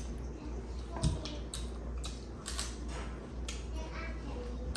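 Eating sounds from people eating by hand: irregular wet clicks and smacks of chewing mouths and fingers mixing rice and curry on plates, over a steady low hum.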